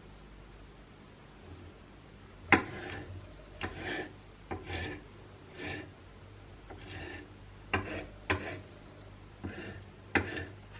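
About ten scraping strokes of a utensil against a cooking pan, each starting with a light knock. They begin about two seconds in and come at uneven intervals.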